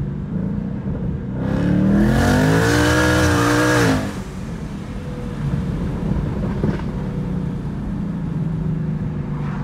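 Twin-turbocharged 5.0 L V8 of a 2019 Mustang GT with a Hellion kit, heard from inside the cabin. About a second and a half in, it goes to full throttle in second gear and its note climbs in pitch for about two and a half seconds, then cuts off sharply as the throttle is lifted. It then settles back to a steady cruise.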